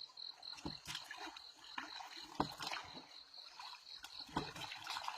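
Faint water sounds and scattered light knocks, over a high, evenly pulsing buzz.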